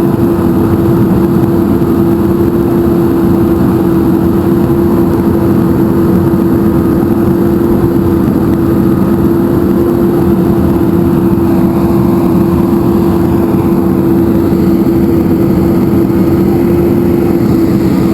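A machine's engine running steadily at constant speed, a loud continuous hum with a fixed pitch over a low rumble.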